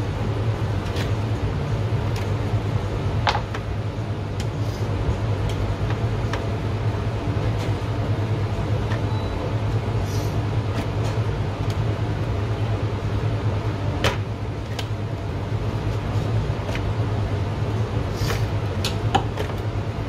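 Steady low hum of kitchen machinery, with a few light clicks and knocks as a knife trims lamb loin on a plastic cutting board.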